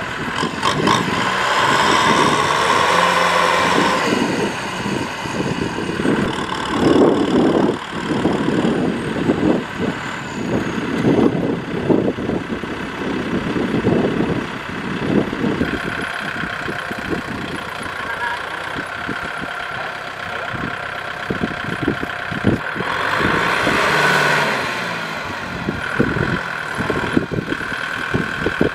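Kubota tractor's diesel engine running under heavy load, its revs and loudness rising and falling unevenly as the tractor is stuck in deep mud with a loaded sled of rice sacks.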